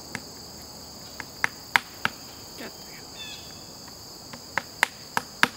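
Hammer tapping wooden mushroom plug-spawn dowels into drilled holes in a log: sharp taps in two quick runs, a few about a second in and several more near the end. A steady, high insect chorus carries on underneath.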